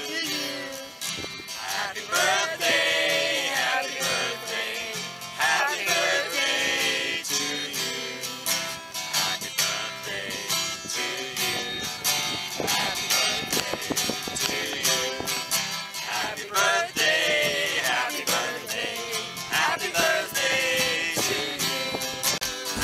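Music led by guitar, with a melody line that bends in pitch throughout.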